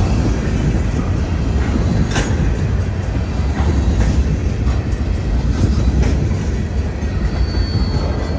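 Covered hopper cars of a freight grain train rolling past close by: a steady heavy rumble of steel wheels on the rails, with a few sharp clicks from the wheels.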